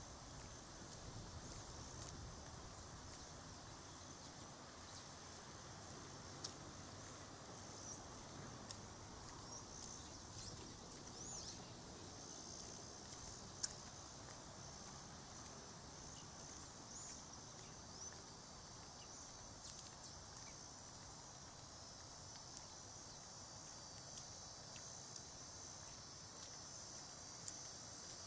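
Faint outdoor ambience of insects chirring steadily at a high pitch, with a few short bird chirps around the middle and an odd sharp click.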